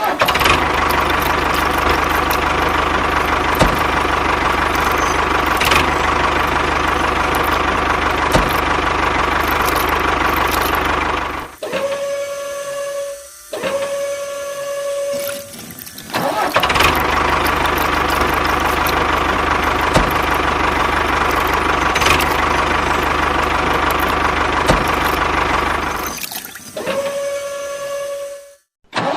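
A small motor-driven DIY mini tractor and drilling machine running steadily. It cuts out twice, about eleven seconds in and near the end, and each time a short, steady high whine follows before it starts up again.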